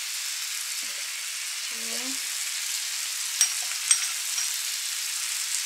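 Meat sizzling steadily in a hot frying pan, with two sharp clicks a little past the middle.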